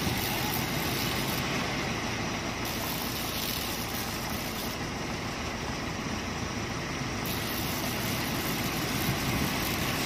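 Heavy diesel construction machinery running steadily: the engines of a concrete mixer truck and an excavator working side by side.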